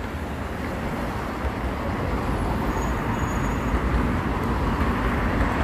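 Steady city street traffic noise: a continuous rumble of passing vehicles with no single event standing out.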